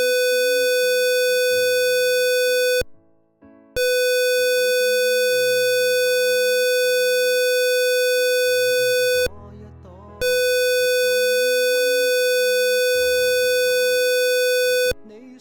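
Electronic alarm buzzer of a digital logic alarm circuit sounding a loud, steady high tone. It cuts out for about a second twice, about three and nine seconds in, and stops near the end. A song plays quietly underneath.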